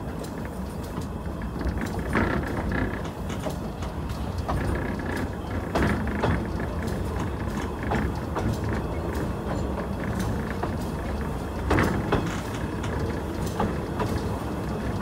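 Bagnall 0-4-2T narrow-gauge steam tank locomotive running along the line, heard from its cab: a steady rumble with irregular clanks and knocks from the wheels and running gear.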